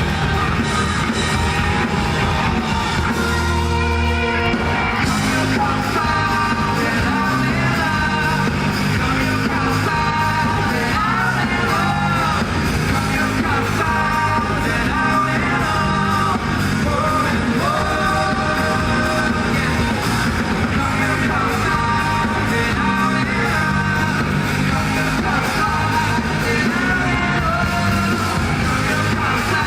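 Rock band playing live: a male voice singing over electric guitars, bass and drums, heard through an audience recording.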